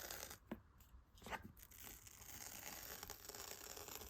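Paper pull-tab seal strip being torn off a cardboard iPad box: a faint, drawn-out tearing with a couple of small clicks.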